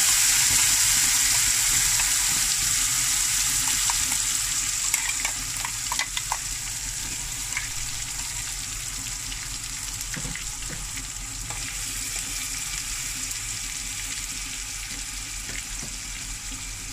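Ground tomato paste sizzling in hot tempering oil in a stainless steel kadai. The sizzle is loud at first and slowly dies down. A metal spoon taps and scrapes against the pan a few times in the first part.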